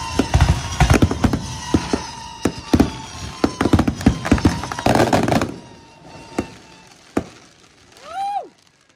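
Fireworks going off in a rapid barrage of bangs and crackles that dies away after about five seconds, followed by a few scattered last bangs. A brief rising-and-falling tone is heard near the end.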